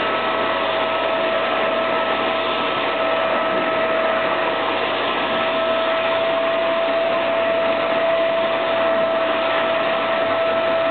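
Vacuum cleaner running steadily, a constant whine over the rush of air.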